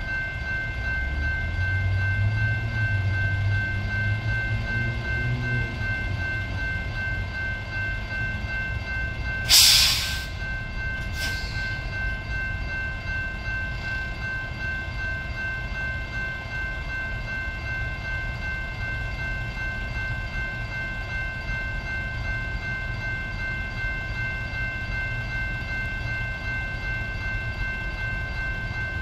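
Level-crossing warning bells ringing steadily over a low rumble. There are two sharp bursts of noise, about ten and eleven seconds in; the first is the loudest.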